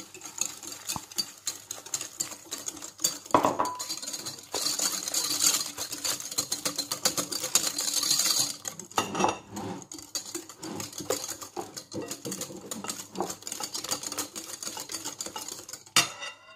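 Metal wire balloon whisk beating eggs and sugar in a glass bowl, its wires clicking and scraping rapidly against the glass. It stops abruptly near the end.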